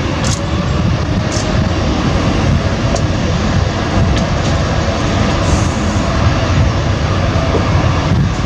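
Jet engines of a Boeing 787-8 Dreamliner running on the runway: a loud, steady low rumble with a faint thin whine over it.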